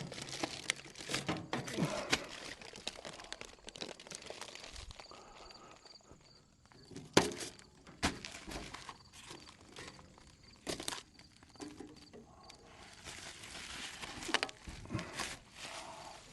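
Handling noises from unpacking shipping parts: scattered knocks and clunks with crinkling of packing material. A sharp knock about seven seconds in is the loudest, and another comes near eleven seconds.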